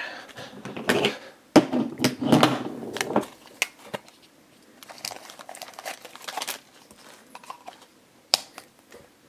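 Crinkling cellophane and clicking plastic as a toy test tube's snap-on cap is pulled off and the wrapped figure inside is handled: a few sharp clicks among bursts of rustling.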